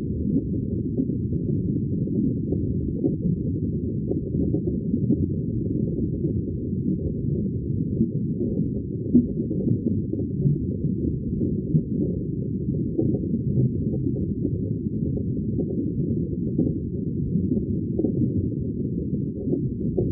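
Underwater ambience: a steady, muffled low rumble of water, with nothing high-pitched in it.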